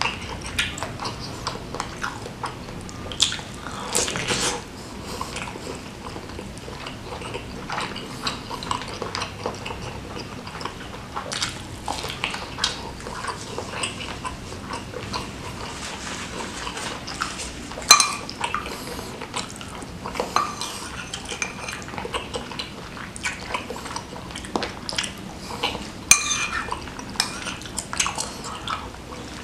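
Close-up eating sounds: wet chewing and smacking on a meatball-stuffed squid, squelchy tearing of the saucy squid by gloved hands, and a spoon clinking against ceramic bowls. The short clicks and smacks come irregularly throughout, with one sharper knock about eighteen seconds in.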